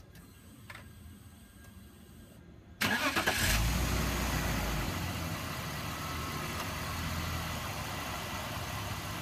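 BMW 325i straight-six cranked on the starter and catching about three seconds in. The revs flare briefly and then settle into a steady idle, the first start after a fresh oil change.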